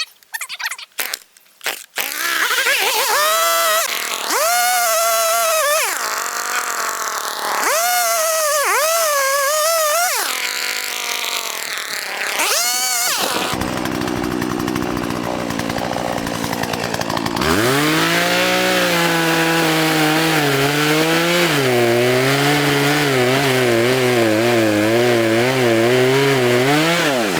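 Small two-stroke engine of a handheld power tool, revved up and down in several short bursts. It drops to a lower, steadier speed, then about two-thirds of the way through runs continuously at high speed with a wavering pitch. A few short clicks come just before the revving begins.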